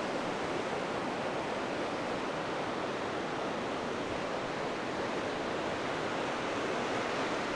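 Steady rush of a whitewater river.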